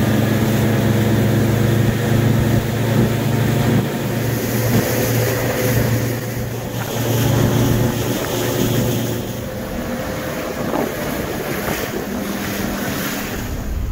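Boat's outboard motor running steadily while under way, with wind buffeting the microphone and water rushing past the hull.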